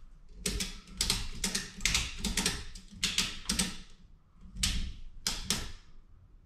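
Strap hardware on the straps hanging a kayak from the ceiling clicking as the straps are pulled and adjusted: a quick run of sharp clicks, about two close pairs a second, a short pause, then a few more clicks.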